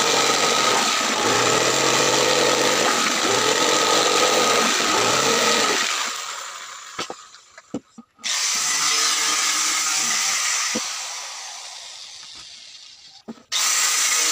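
Corded jigsaw cutting a circular hole in plywood, the motor shutting off and running down about six seconds in, followed by a few sharp knocks of the board being handled. Then a power tool starts abruptly, runs for a couple of seconds and slowly winds down, and near the end a handheld trim router starts up.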